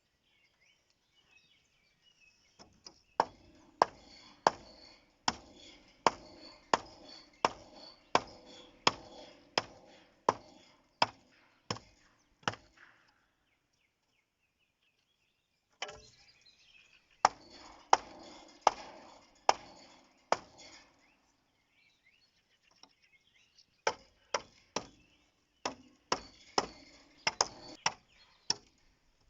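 Repeated sharp blows of a tool striking wood, a little more than one a second. They come in three runs, the first about a dozen strokes long, with short pauses between.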